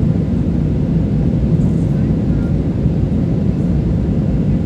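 Steady low cabin roar of an Airbus A320 in flight, heard from inside the cabin: the noise of its IAE V2500 turbofan engines and the airflow over the fuselage.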